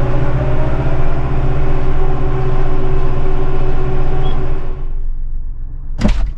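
A motor vehicle's engine running steadily under load, with a strong low rumble, stopping abruptly about five seconds in; a single sharp knock follows about a second later.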